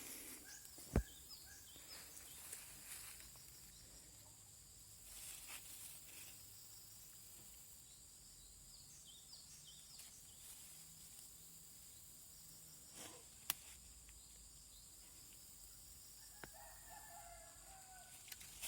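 Quiet outdoor ambience: faint bird chirps over a steady high hiss, with two sharp clicks, one about a second in and one past the middle, and a short pitched call near the end.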